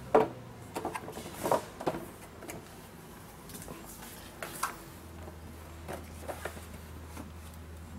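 Plastic two-step folding step stool being unfolded and set down on a concrete floor: a sharp plastic clack at the start, then a scattering of lighter knocks and clicks as its steps and legs are handled.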